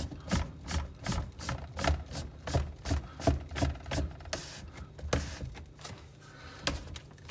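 Plastic housing of a reverse-osmosis prefilter being screwed by hand onto its filter head, the threads rubbing and scraping in short strokes, about two to three a second, easing off after about five seconds.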